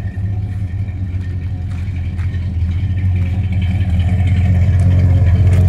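1977 Chevrolet pickup engine idling with a steady low hum, growing a little louder toward the end.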